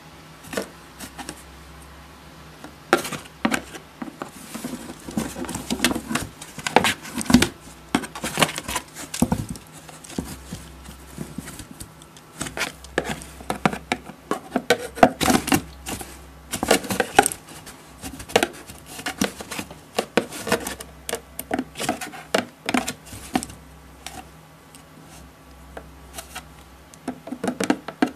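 Irregular scratching, scraping and tapping on a cardboard shoebox, as a cat inside claws and bats at a teaser wand pushed through a hole in the side. The wand's stick knocks and rubs against the cardboard.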